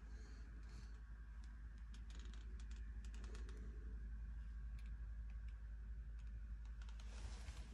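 Faint, scattered light clicks and ticks over a low steady hum.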